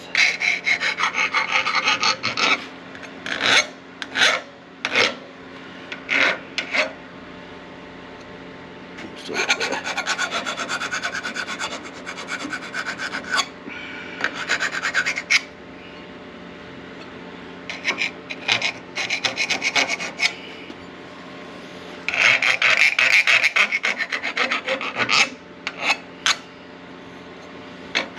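Hand file rasping along the freshly cut edges of an aluminum angle piece to deburr them, in runs of quick back-and-forth strokes with single strokes in between.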